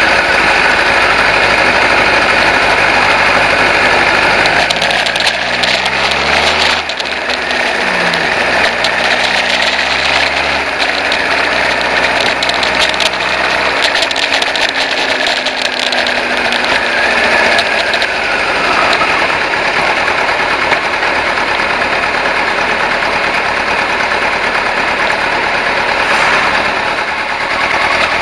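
Kawasaki ZZ-R1100's carbureted inline-four motorcycle engine running at low road speed, its pitch rising and falling with the throttle, under a steady rush of wind noise.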